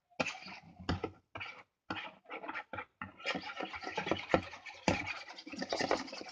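A stirring tool scraping around a bowl of runny slime mixture, in separate strokes for about the first three seconds, then faster and nearly continuous.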